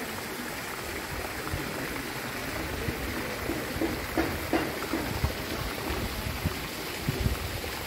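Steady hiss of running water, with a few short, soft knocks and faint indistinct sounds in the second half.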